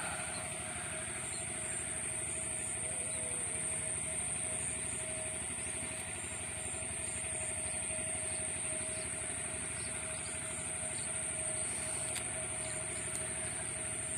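Steady outdoor drone with a constant high-pitched hum above it.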